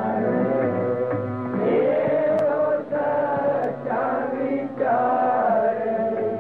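Sikh kirtan: voices singing a line of Gurbani in long held phrases, with a few brief breaks between phrases, over a steady instrumental drone.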